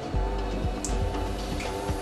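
Background music with sustained, held tones.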